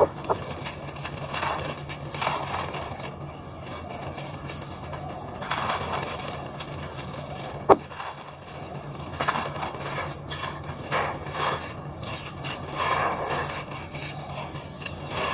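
Dry lumps of cement-and-sand mix crushed and crumbled by hand, the gritty grains pouring through the fingers onto a dusty floor in repeated crunchy swells, with one sharp snap about eight seconds in.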